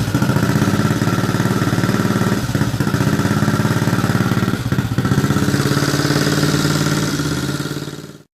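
1980 Yamaha TT250's single-cylinder four-stroke engine running at a fast idle with an even pulsing beat, dipping briefly twice, then fading out near the end.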